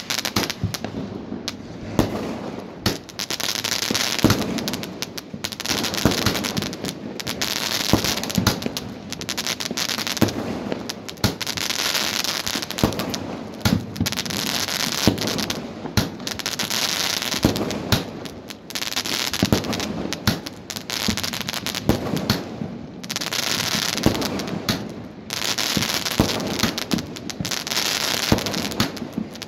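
Aerial fireworks going off: many sharp bangs and pops over a crackling hiss of sparks that swells and fades every couple of seconds.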